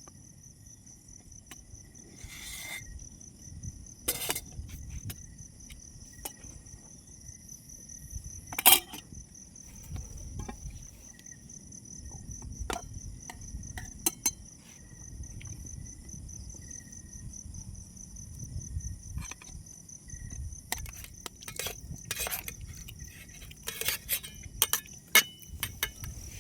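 Steady high-pitched chirring of insects, with scattered sharp clicks and knocks over a low rumble; the loudest knock comes about nine seconds in.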